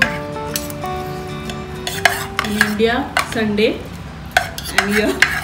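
Spoons and forks clinking and scraping on ceramic dinner plates as people eat, in a run of scattered clicks, with music playing underneath.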